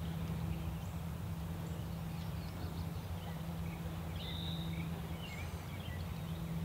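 A bird gives a short high whistled note about four seconds in, then a few quick faint chirps, over a steady low hum.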